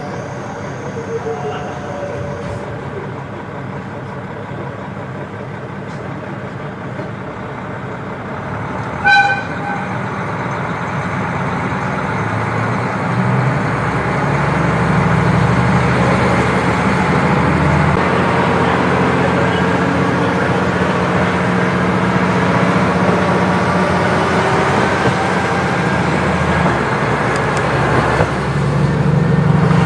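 KiHa 40 diesel railcar running, with one short horn blast about nine seconds in. From about twelve seconds the engine is throttled up: its low note strengthens and the sound grows louder and stays so.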